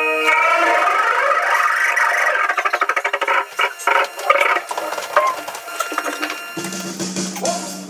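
Sustained musical tones of a stage intro, breaking up into a fast run of clicks about halfway through, then a low steady note held from near the end.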